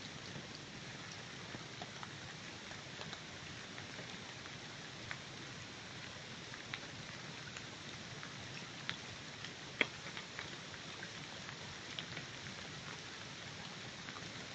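Massed wild honeybees clustered on an open comb, making a steady hiss with scattered light ticks and crackles.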